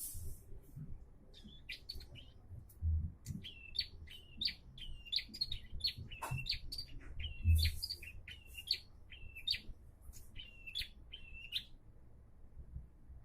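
Prenjak (a prinia) calling a long run of short, sharp chirps, two or three a second, which stops about a second before the end. Two low thumps come in between.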